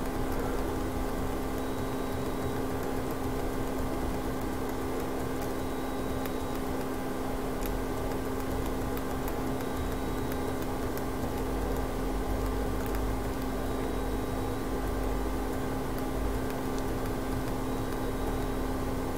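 Steady low machine hum with a constant tone and an even background hiss.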